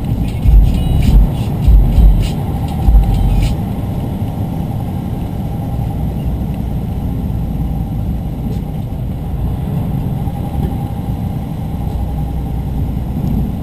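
Road noise inside a moving vehicle's cab: a steady low rumble of tyres and engine at driving speed. Several heavy thumps and knocks come in the first few seconds, then the rumble runs on evenly.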